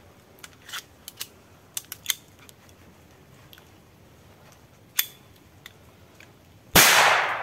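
IZh-79T rubber-bullet (traumatic) Makarov-type pistol being worked by hand after a failure to feed: a few small metallic clicks, one sharper clack about five seconds in, then a single loud shot near the end that rings off.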